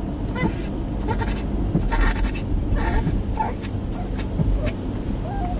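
Elderly Shih Tzu whimpering in short, high squeaks that rise and fall, with a few short hissing bursts, over the steady rumble of road noise inside a moving car. It is restless fussing that the owner wonders may come from dog dementia.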